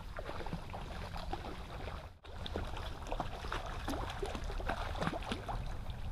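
A hooked fish splashing and thrashing at the surface of a shallow stream as it is played in close, in a run of irregular splashes and water slaps that grow busier in the second half. The sound drops out for an instant about two seconds in.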